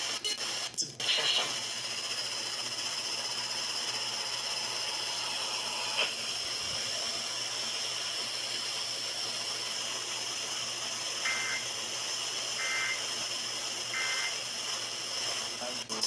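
Steady static hiss from a broadcast radio receiver, with a single click about six seconds in. Near the end come three short two-tone data chirps about a second and a half apart: the EAS end-of-message bursts that close the monthly test.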